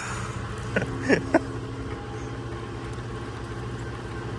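A motor running steadily at idle, a low even hum, with a few short clicks and a brief falling squeak about a second in.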